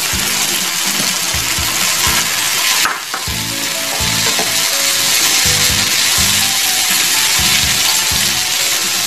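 Chopped tomatoes, onion and garlic sizzling in hot oil in a frying pan, stirred with a wooden spatula. The sizzle dips briefly about three seconds in.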